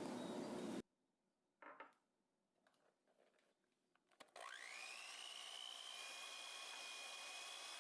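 A steady noise cuts off abruptly under a second in, followed by a few faint clicks and a knock. About four seconds in, a small electric motor spins up with a quickly rising whine and then runs steadily with a high hum over a hiss.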